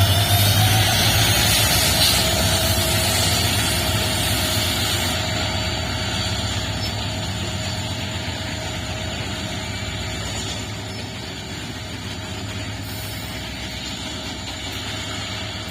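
Two WDG4 diesel-electric locomotives, EMD 16-710 two-stroke diesel engines, humming steadily with a deep low drone. The sound fades gradually over the stretch.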